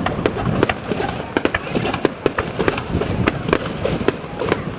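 Fireworks display: a rapid, irregular run of sharp bangs and crackles, several a second.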